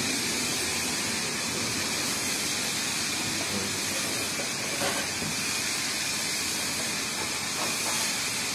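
Steady hiss of high-pressure water spray from a self-service car wash pressure washer, with a small knock about five seconds in.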